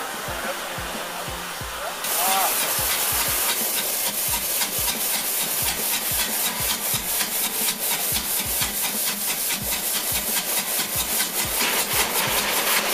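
Steam locomotive exhaust beating through the chimney in rapid, even chuffs as the engine works hard under load. It starts about two seconds in, after a quieter hiss with a brief squeal.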